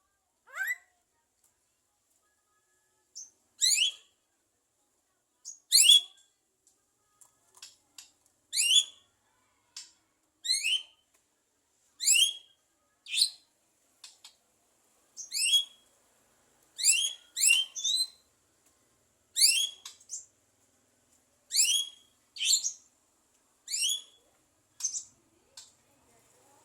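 Javan myna (jalak kebo) giving about twenty short, sharp whistled calls, each a quick downward sweep, spaced irregularly one to two seconds apart.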